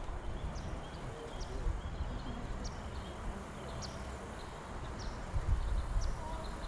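Low wind rumble buffeting the microphone, with a stronger gust about five and a half seconds in. Short high chirps repeat about once a second over it.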